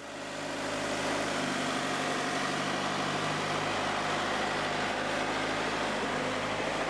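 Nissan X-Trail SUV's engine running steadily at low revs as it moves slowly over soft sand, a low hum under a steady rushing noise that swells up over about the first second.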